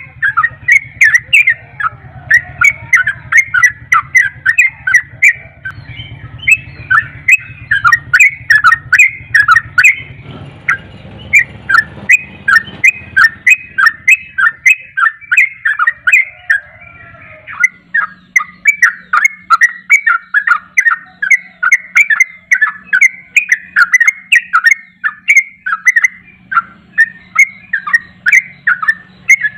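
Yellow-vented bulbul singing a long, fast, unbroken run of short chirping notes, the rolling 'ropel' song that bird keepers prize.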